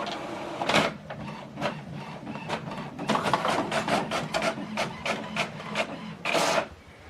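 HP OfficeJet 8015e inkjet printer printing a test page: a steady mechanical hum with rapid clicks and whirs, busier from about halfway through, and a louder burst of sound shortly before the end.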